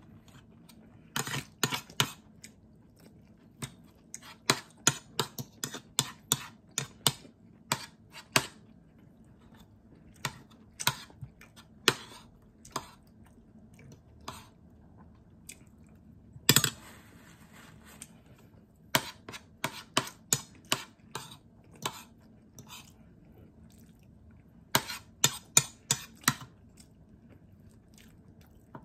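A person eating with fork and spoon: chewing and cutlery clicking and scraping on a plate, in quick irregular runs of sharp clicks. There is one longer rustling noise a little past the middle.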